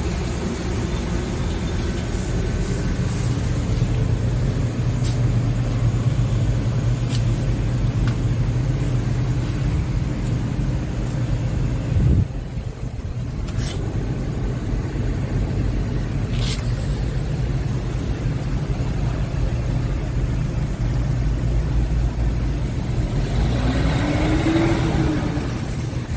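Scania P truck's diesel engine idling steadily with a low, even rumble. A short rising-then-falling hum comes in near the end.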